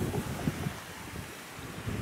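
Strong wind buffeting the microphone in gusts, easing after the first half second, over the sea washing against the sea wall.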